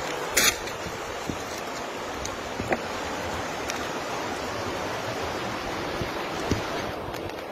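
Fast-flowing river rushing steadily. A few faint clicks and one sharper knock about half a second in come from the phone being handled.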